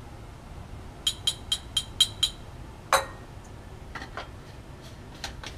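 Glass clinking: a glass graduated cylinder tapped six times in quick succession against a glass beaker, about four ringing clinks a second, then one louder knock of glassware set down and a few faint clicks.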